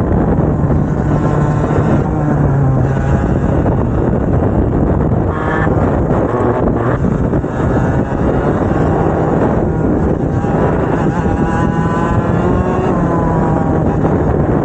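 Two-stroke racing kart engines running hard at speed, the engine note rising and falling as the throttle comes on and off.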